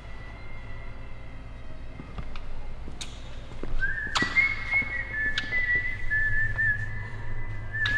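High whistling tone held almost steady with slight wavers; a second whistling tone a little lower joins about halfway through. A few sharp taps sound as a rag is wiped over the tractor's painted steel loader.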